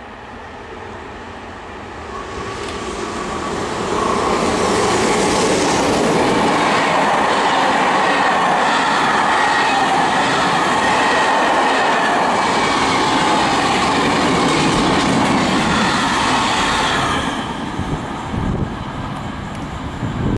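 Freight train of open and hopper wagons passing at speed, its wheels running on the rails with a steady high ringing tone over the rumble. The sound builds over the first four seconds, holds loud, and falls away about three seconds before the end.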